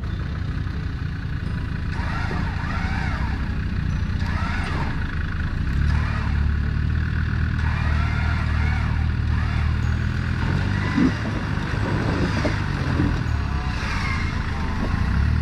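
Four-wheel drive's engine running at low revs under load as it crawls up a steep, rocky, rutted track. It grows louder about six seconds in and again near the end, and there is a single short clunk about eleven seconds in.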